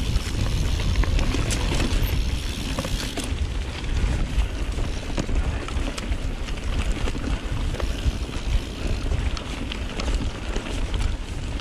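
Wind buffeting the microphone of a camera on a moving mountain bike, with the rattle and sharp clicks of the bike running over rough trail.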